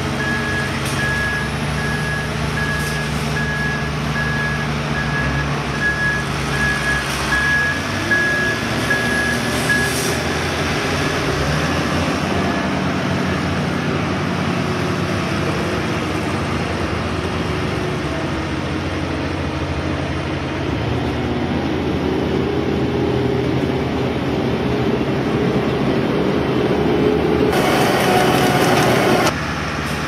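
Asphalt distributor truck's engine running steadily, with a backup alarm beeping at an even pace for about the first ten seconds. Near the end comes a louder hiss lasting a couple of seconds, which stops abruptly.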